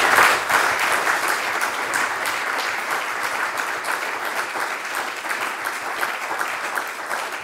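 Audience applauding, strongest at the start and then holding steady.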